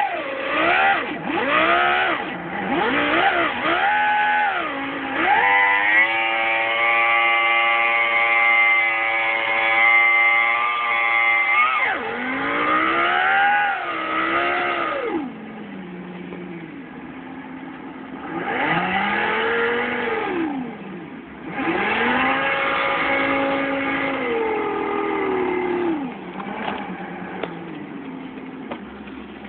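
Sound Racer V10 gadget's synthesized V10 race-engine sound, played through the car's stereo. It revs up and down several times, holds a high steady rev for about six seconds, then drops to lower revs with two more rises and falls. The owner finds it poorly synced to the Celsior's real engine speed.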